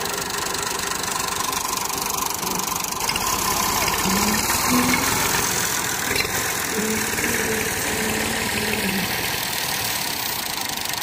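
Massey Ferguson tractor's diesel engine idling steadily.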